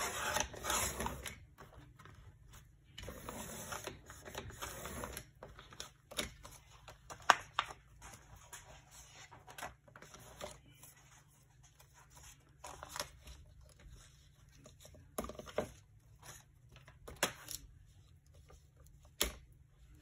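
Paper and craft materials being handled on a table: two spells of rustling in the first five seconds, then scattered light taps and clicks.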